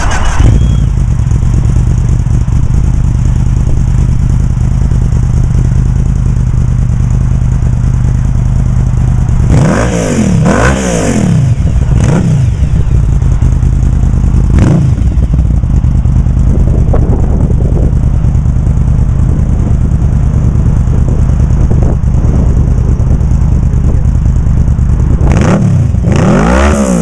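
2009 Yamaha VMax's V4 engine idling steadily through an Akrapovic mid pipe and Remus mufflers, with the throttle blipped: a rev up and back down about ten seconds in, a short blip a few seconds later, and another rev near the end.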